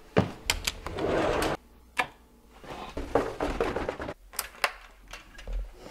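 A door latch clicks and the door swings open, then footsteps go down wooden stairs as a series of irregular knocks and thuds.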